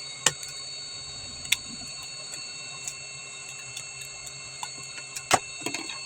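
Scattered sharp clicks and snaps of a plastic pry tool working at the glued seam of a solar flood light's housing, over a steady background hum.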